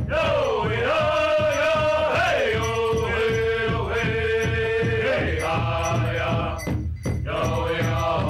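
Theme music: a chanting voice over a steady drum beat, with one long held note in the middle and a brief break about seven seconds in.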